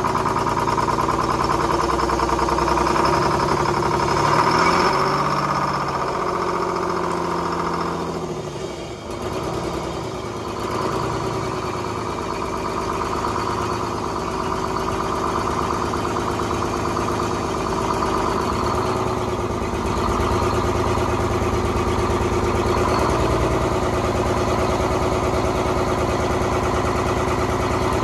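Detroit Diesel 6-71 two-stroke diesel engine running after being freed of stuck injectors; its pitch falls and the sound dips briefly about eight or nine seconds in, then it settles into a steady idle.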